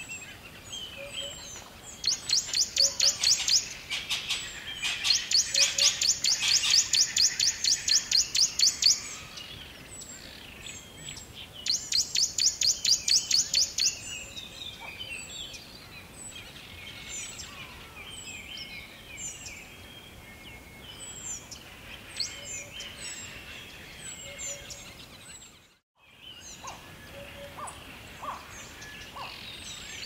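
Forest bird chorus: many scattered short high chirps and whistles, with several bursts of a rapid, evenly pulsing high-pitched trill, each lasting a few seconds. The sound drops out briefly about three-quarters of the way through.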